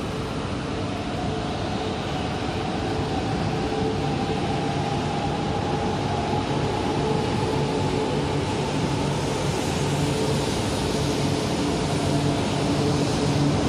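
E4 series double-deck Shinkansen pulling out of the station, passing close by at low speed. The traction motors whine in several steady pitched tones over rolling and rumble noise, and it grows steadily louder as the train gathers speed.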